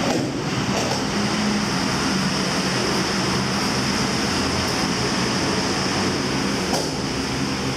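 Steady hiss of background noise, with faint soft thumps just after the start and near the end.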